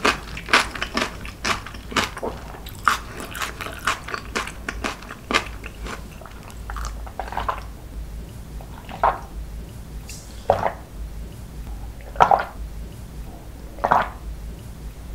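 Close-miked chewing of crunchy food, dense crisp crunches, for the first several seconds; then the chewing stops and water is gulped from a glass, one swallow about every one and a half to two seconds.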